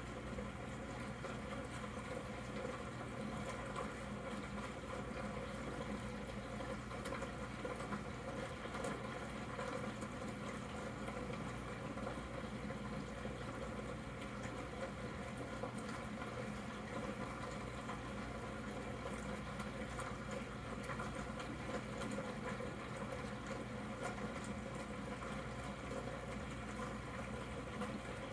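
Aquarium air bubbler bubbling steadily as a column of air bubbles breaks at the water surface, with a steady low hum underneath.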